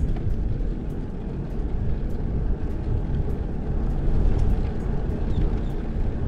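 Wind rushing over a handlebar-mounted camera's microphone while riding a bicycle, with tyre noise on pavement. Faint light ticks come through every half second or so.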